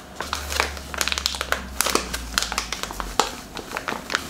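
Plastic packet of ground almonds crinkling and crackling as it is shaken and squeezed to pour the powder into a glass bowl, many quick crackles one after another. A low hum runs under it and stops about three seconds in.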